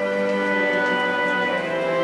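Instrumental processional music playing, with long held notes that change every second or so.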